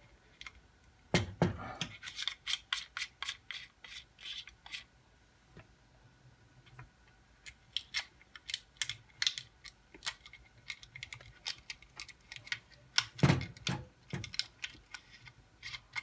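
Scattered small clicks, taps and scrapes of hands working a boiler circulating pump's plastic terminal box and its wires, with a louder knock about a second in and another near the end.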